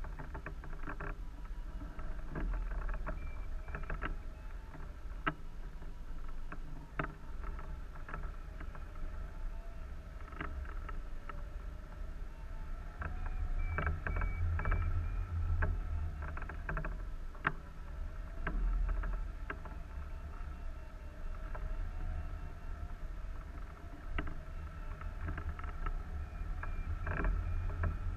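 Airflow rushing and buffeting over a wing-mounted camera on a hang glider in flight, a steady low rumble that swells and eases. Scattered sharp clicks and a faint steady whine ride on top.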